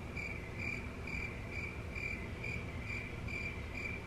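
A cricket chirping in an even rhythm, about two to three short chirps a second.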